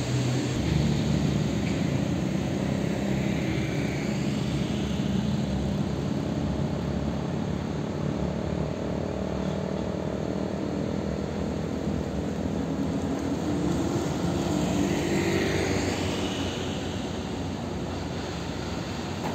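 Diesel engines of heavy fuel tanker trucks driving past, a steady low drone with tyre noise that swells about three-quarters of the way through as the trucks come close.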